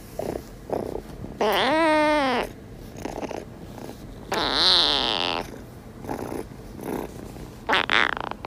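A drowsy orange-and-white kitten purring in soft pulses with each breath, giving two longer, louder mews that rise and fall, about two and five seconds in.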